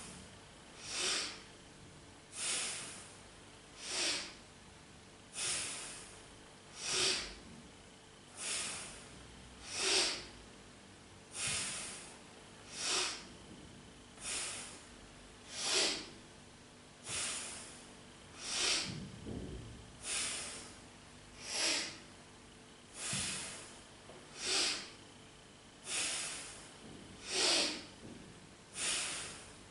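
A woman breathing forcefully in and out through the nose in a steady rhythm, about one breath sound every second and a half, paced to alternate leg lifts.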